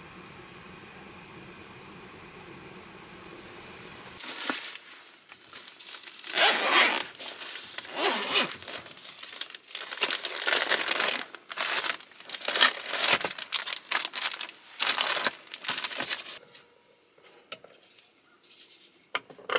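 A steady hum for about four seconds, then crinkling and rustling of something being handled, in irregular loud bursts for about twelve seconds, dying down near the end.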